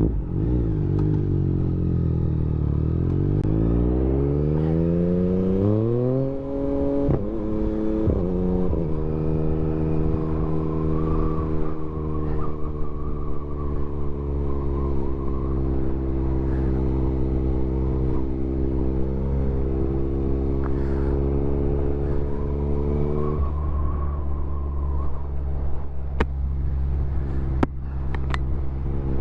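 Motorcycle engine on the road: revs fall briefly, then climb with rising pitch through a couple of gear changes and settle into steady cruising, with a small drop in revs about three-quarters of the way through.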